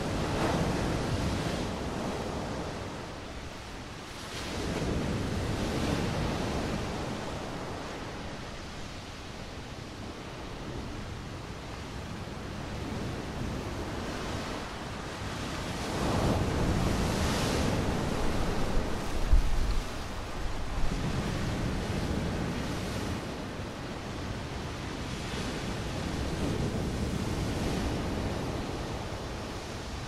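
Stormy sea waves breaking and washing in, the noise swelling and fading in slow surges every few seconds. Wind gusts buffet the microphone, with a few brief low thumps a little past the middle.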